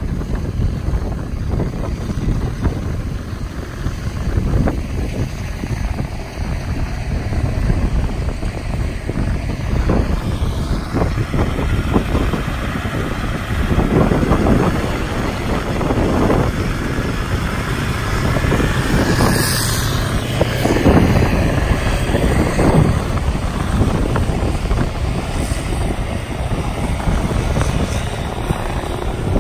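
Wind buffeting the microphone with a steady low rumble, and the engine drone of a combine harvester at work, swelling louder a few times around the middle.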